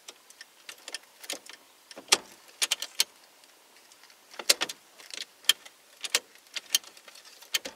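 Irregular sharp clicks and small rattles of a replacement ignition lock cylinder and its key being worked into a Ford F-150 steering column by hand. The clicks come in two clusters, about two seconds in and again from about four and a half seconds.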